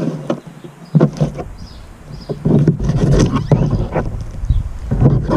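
Wind rumbling on the microphone, with scraping and slicing from a fillet knife cutting red drum meat off the skin on a plastic table.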